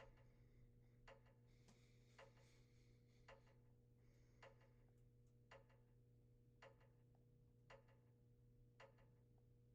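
Faint regular ticking, one sharp tick about every second, over a steady low hum.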